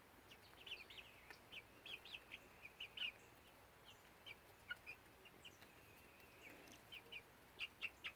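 Faint, short bird chirps, many of them scattered irregularly, each a quick high note.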